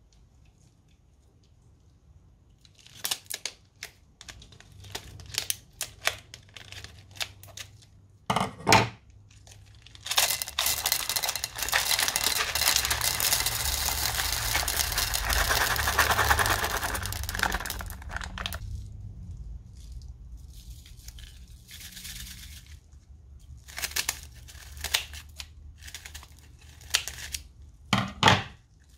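Clear plastic piping bag crinkling as it is handled, then a stream of small plastic beads pouring out of it into a bowl of slime for about eight seconds, a dense patter mixed with the bag's crinkle. Scattered crinkles of the bag follow.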